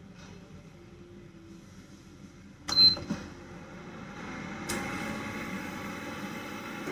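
Induction cooktop switched on: a short, high electronic beep about three seconds in, then the cooktop's cooling fan starting with a steady whir.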